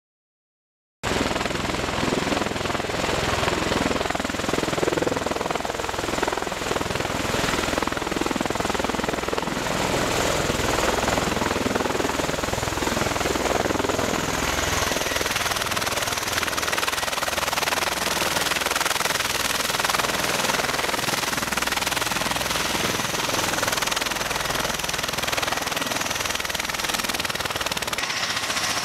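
MV-22 Osprey tiltrotor aircraft running close by as they land and sit on the ground, a loud, steady rush of rotor wash and turbine noise with a fluttering rotor beat. It starts abruptly about a second in, and a high, thin turbine whine comes in about halfway through.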